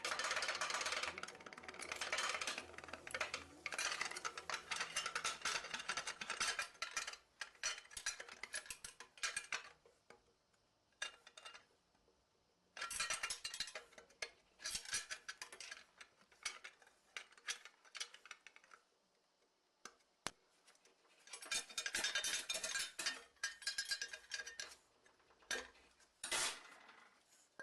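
Metal tools and engine parts clinking, rattling and ratcheting in quick bursts, broken by a few silent gaps, during the teardown of a Doosan DE12T diesel engine.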